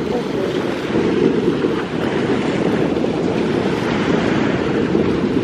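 Wind buffeting the microphone in a steady low rumble, with small waves washing against a seawall.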